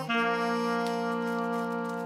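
Background music of brass instruments holding one long chord.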